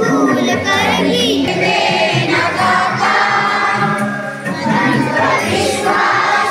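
A group of children and adults singing a devotional prayer together, with a steady low drone held beneath the voices.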